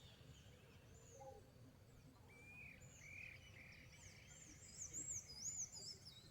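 Birds chirping faintly in a series of short, arched notes, busier and louder in the second half, over faint background noise.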